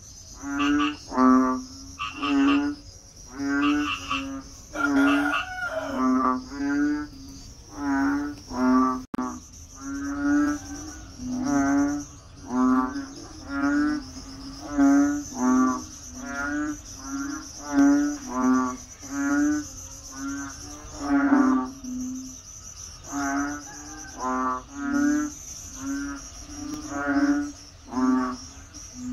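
A frog calling over and over, short pulsing croaks at about two a second with a couple of brief pauses, over a steady high buzz of insects.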